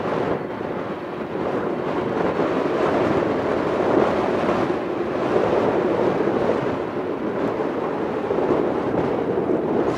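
Jet engine noise from a Boeing 767-400ER moving along the runway, heard as a steady rumble, with wind buffeting the microphone.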